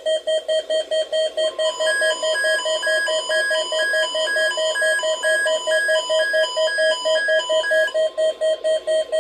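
Electronic alert beeping from weather radio receivers: a fast, even train of beeps, joined about two seconds in by a second, slower and higher-pitched beep that overlaps it until about eight seconds in.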